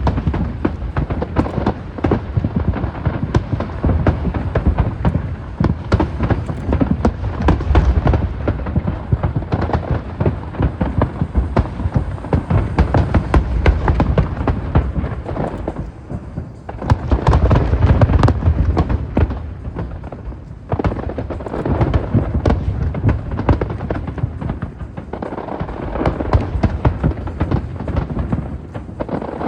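Dense fireworks barrage: rapid, overlapping bursts with crackling and a deep rumbling boom, loud throughout, easing briefly about sixteen and twenty seconds in.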